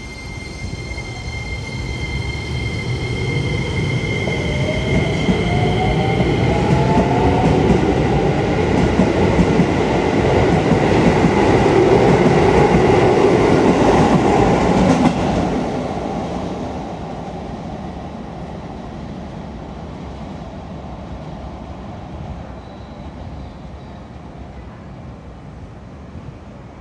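Keisei 3000-series electric train pulling out of the station: its traction motors whine and rise in pitch as it accelerates, under a growing rumble and clatter of wheels on rail as the cars pass. The noise is loudest about twelve to fifteen seconds in, then drops off quickly and fades as the train moves away.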